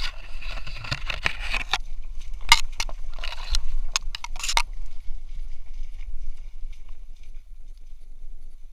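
Grass and reed stems swishing and scraping against a dog-mounted camera as the dog pushes through dense vegetation: irregular rustling bursts and sharp crackles for the first four and a half seconds, then only faint brushing, over a low rumble from the jostling mount.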